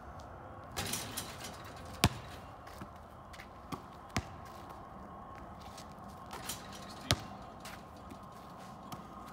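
Basketball bouncing on an asphalt driveway: a handful of separate sharp bounces, the loudest about two, four and seven seconds in, with softer taps between.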